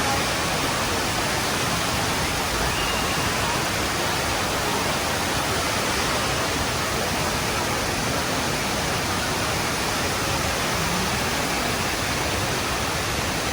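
A 40-metre indoor waterfall: the steady rush of falling water, even and unbroken.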